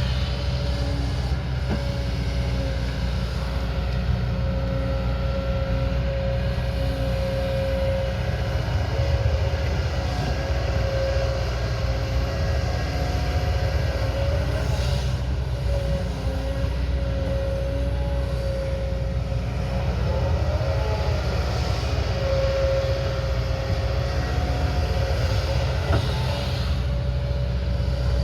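Diesel engine of a heavy earthmoving machine running steadily under load, a deep rumble with a steady high whine over it.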